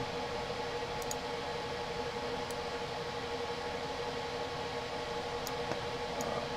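Steady hiss of background room and microphone noise with a faint steady hum, and a few faint computer mouse clicks spread through it.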